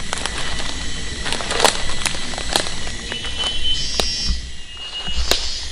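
Footsteps crunching through leaf litter on the forest floor, with irregular sharp snaps of twigs. A faint steady high tone runs underneath, and brief high whistled calls come about three to four seconds in.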